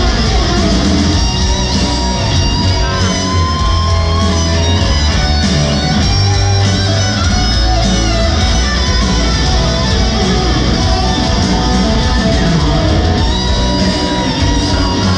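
Live rock band playing a slow ballad, with a lead electric guitar carrying the melody over bass and drums. The guitar holds and bends long notes, with a rising bend about three seconds in.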